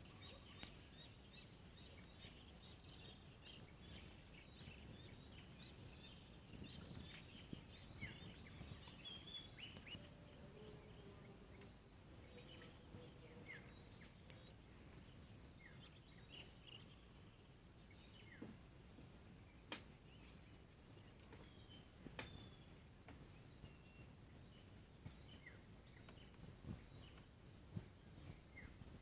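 Faint, scattered chirps and short whistles of small birds, over a steady high hiss, with a couple of sharp clicks past the middle.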